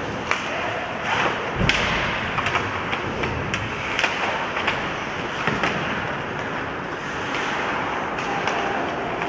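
Ice hockey play on the rink: a steady scraping hiss of skate blades on the ice, broken by many sharp clacks of sticks and puck, about one or two a second.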